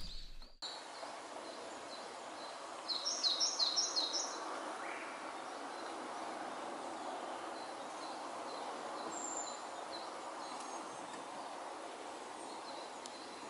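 Outdoor ambience with birds calling over a steady low background hiss. A quick run of high chirps comes about three seconds in, then a bird repeats a short high note about twice a second.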